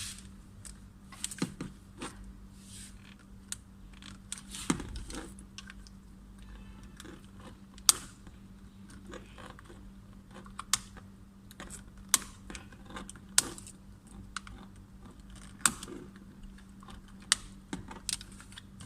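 Irregular sharp plastic clicks and small rattles, about a dozen scattered through the stretch, from handling a Nissan X-Trail's master power window switch: its wiring harness connectors being unplugged and plugged in.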